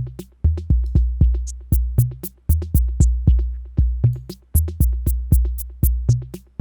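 Arturia DrumBrute analog drum machine playing a looping beat. An overdriven kick with a long booming tail repeats about every two seconds, with quicker kick hits between and fast high maraca ticks swept by an LFO-driven auto filter.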